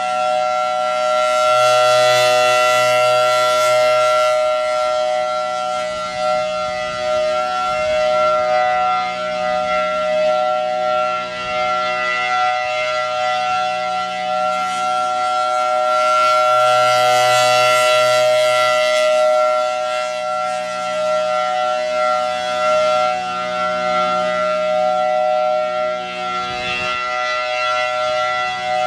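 Federal Signal Thunderbolt 1003 rotating siren sounding a steady full-alert tone. The pitch holds level while the loudness swells and fades about every fifteen seconds as the horn turns toward and away from the listener.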